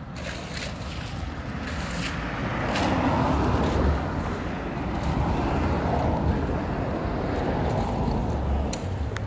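A motor vehicle going by on the road, a rising rush of engine and tyre noise that is loudest a few seconds in, with wind rumbling on the microphone.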